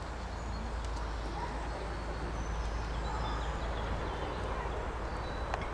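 Horse trotting on a sand arena, its muffled hoofbeats under a steady low rumble, with faint birdsong chirps.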